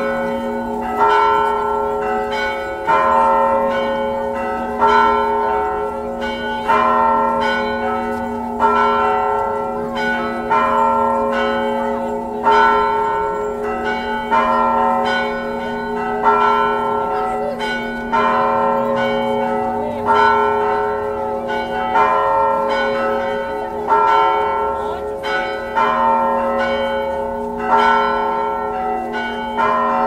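Several church bells ringing together in a repeating peal. A fresh round of strokes comes about every two seconds, and the bells' tones ring on between the rounds.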